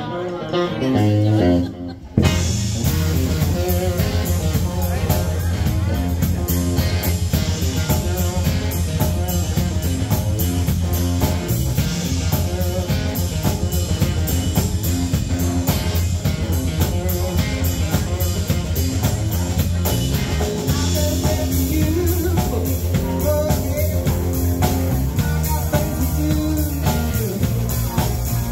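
A live band of electric guitar, electric bass and drum kit playing. A lone electric guitar plays for about two seconds, then the bass and drums come in and the full band plays on steadily.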